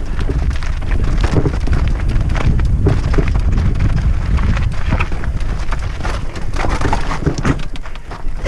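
Mountain bike descending a rocky gravel singletrack: tyres crunching over loose stones, with the bike rattling and knocking on the rocks and wind rumbling on the microphone.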